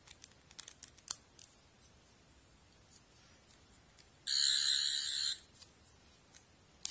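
Toy sonic screwdriver's electronic sound effect: a buzzy tone lasting about a second, a little past the middle. A few light plastic clicks come before it and one near the end.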